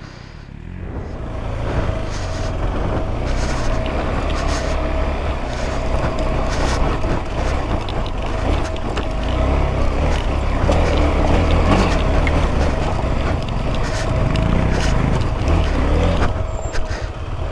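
Motorcycle engine running steadily under load on a loose-rock climb, with scattered knocks and clatter over the engine sound.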